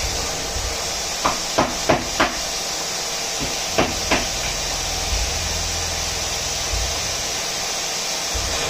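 CNC vertical mill drilling an oil channel into a billet Zündapp 5-speed engine half held on a trunnion: a steady machine hiss, broken by sharp clicks, four in quick succession about a second in and two more near four seconds.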